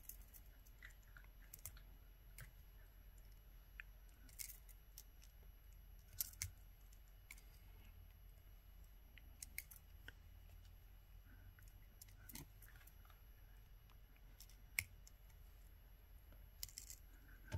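Faint, scattered clicks and ticks of jewelry pliers and thin wire as a wire wrap is coiled around an earring's loop, with near silence between them.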